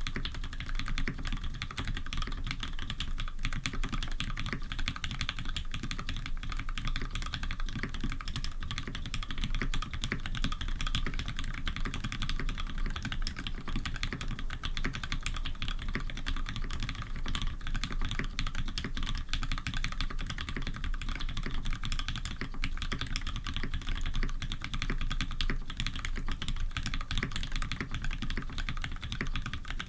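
Continuous fast typing on a Tx87v1 custom mechanical keyboard with lubed Cherry Retooled Black linear switches, a brass plate and GMK keycaps: a dense, steady stream of key clacks.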